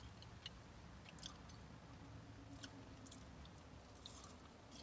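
Quiet chewing of a crispy air-fried veggie patty, with faint scattered crunches.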